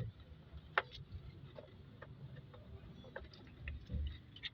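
Scattered light clicks and taps of hands handling vacuum hoses and connectors on a car engine's intake, with one sharper click a little under a second in and a low dull thump near the end.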